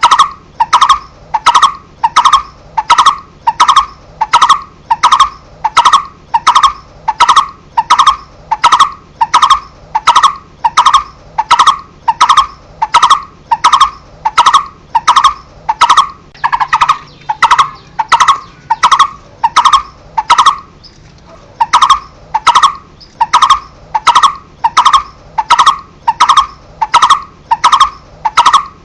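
Coppersmith barbet repeating its single hollow 'tuk' note, loud and evenly spaced at about one and a half notes a second, with a short break about 20 seconds in before the series resumes.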